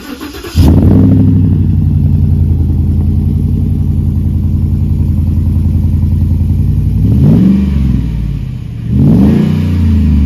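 An engine comes in suddenly about half a second in and runs steadily, then its pitch rises and falls twice near the end as it is revved.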